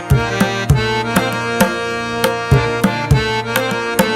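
Background music: sustained melodic tones over a steady pattern of drum strikes.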